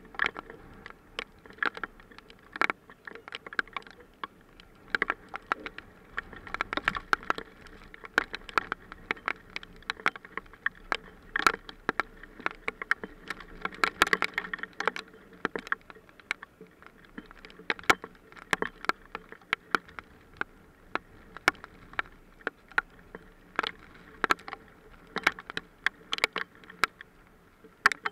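Hailstones striking around the nest: an irregular, rapid patter of sharp ticks and clicks, coming in uneven clusters.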